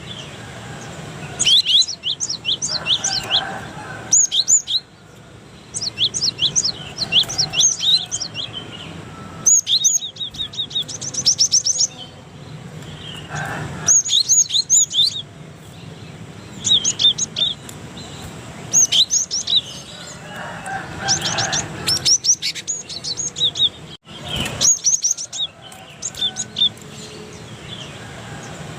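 Cinereous tit (gelatik batu) singing: quick runs of high, sharp chirping notes, one run after another with short pauses between them.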